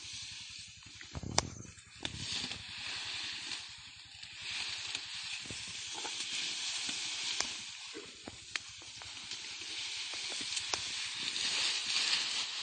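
Leafy brush rustling with scattered twig snaps as an Asian elephant pushes through it, over a steady hiss. A low thud comes about a second in.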